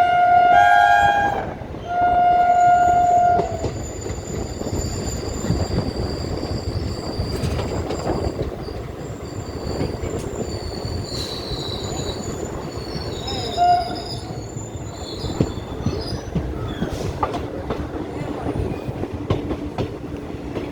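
Train horn sounding in two long blasts, then the rumble of the train running with high-pitched wheel squeal. Later a single brief horn toot.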